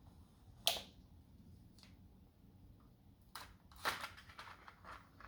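Handling noise from small hard objects, likely jigsaw blades and their packaging: one sharp click about half a second in, then a cluster of clicks and rattles from about three to four and a half seconds in.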